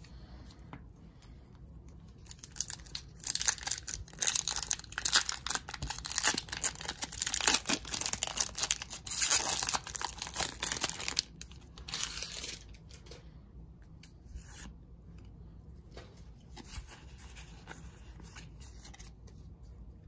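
Foil booster-pack wrapper of Pokémon trading cards being torn open and crinkled by hand, a dense crackle from about two seconds in until around thirteen seconds. After that only faint rustling as the stack of cards is handled.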